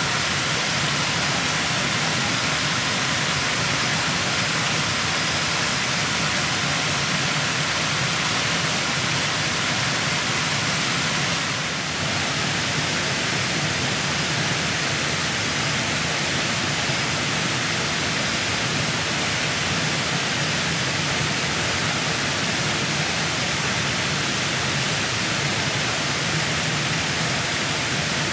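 Steady, loud rushing hiss with no pitch or rhythm, which briefly dips and shifts slightly about twelve seconds in.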